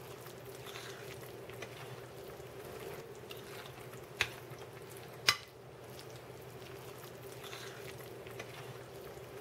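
Fork stirring breadcrumbs into a soft eggplant mixture in a ceramic bowl, with soft mushy scraping and two sharp clinks of the fork against the bowl about four and five seconds in.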